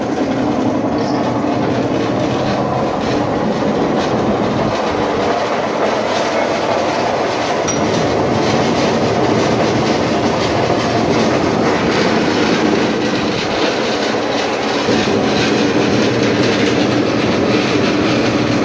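30-inch Oliver model 34-DD double disc sander running under power on 440-volt three-phase supply: a loud, steady machine noise with a constant low hum.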